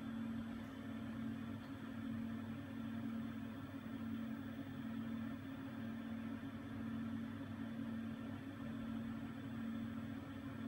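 Steady low electrical hum with a fan-like hiss from a powered-up ZSK industrial embroidery machine standing still.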